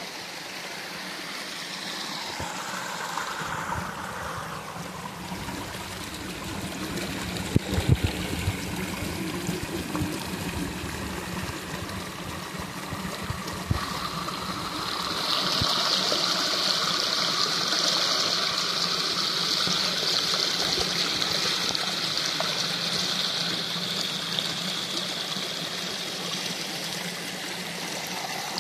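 Water of a waterfall stream running steadily, growing louder and brighter about halfway through. A few sharp knocks sound in the first half.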